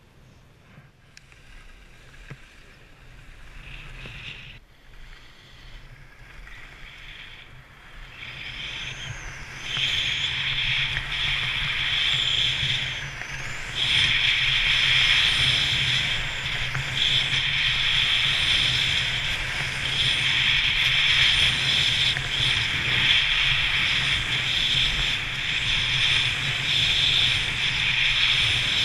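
Skis sliding on groomed snow with wind rushing over the camera microphone. It is a steady hiss that comes up about ten seconds in, gets louder again a few seconds later as the skier gathers speed, and then stays loud.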